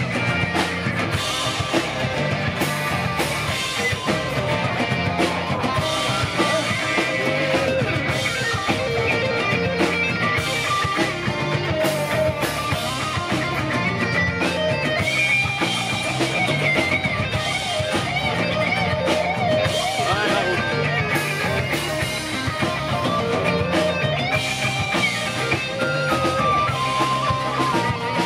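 Live rock band playing: electric guitars, bass guitar and drum kit, with a wavering lead melody line over a steady beat.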